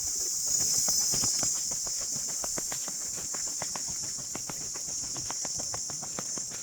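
Steady high-pitched drone of insects, with quick irregular taps throughout, several a second.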